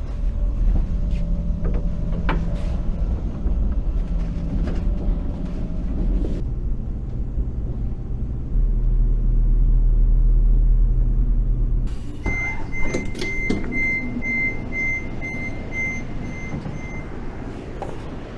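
Low rumble inside a KTX-EUM high-speed train as it comes into the station. About twelve seconds in the sound suddenly opens up as the door opens, and about ten quick high door-warning beeps follow, a little over two a second for about five seconds.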